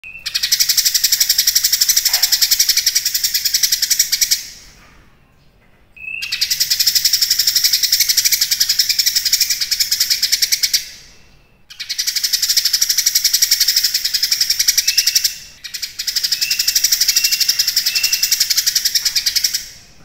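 Caged cucak kinoi in full, persistent song (gacor): a fast, buzzy, high chattering trill delivered in four long phrases of about four to five seconds each, with short pauses between.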